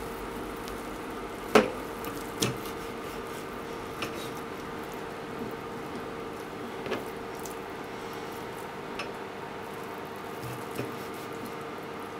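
Kitchen knife slicing through thick deep-fried tofu and tapping down on a plastic cutting board: about six sharp knocks a second or two apart, the loudest about a second and a half in, over a steady background hum.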